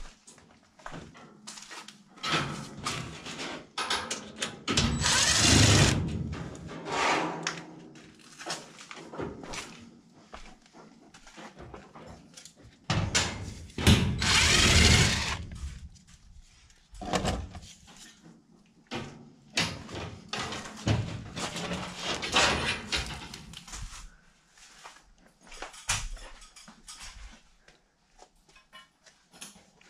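A cordless drill/driver running in several short runs, the longest lasting one to two seconds, driving screws into a galvanized sheet-metal plenum. Between the runs come knocks and rattles of the sheet metal being handled.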